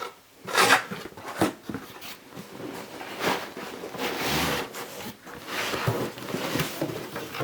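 A cardboard product box being opened by hand: repeated ripping, scraping and rustling of cardboard and packaging, with a few sharp clicks and knocks.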